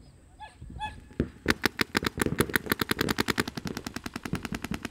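Paintball markers firing rapid strings of shots, many a second, starting about a second in.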